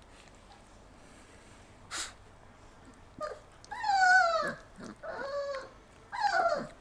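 Four-week-old German wirehaired pointer puppy crying in a series of high, downward-sliding whines and squeals, about four in the second half, while its muzzle is held for an oral syringe dose. A single short click comes about two seconds in.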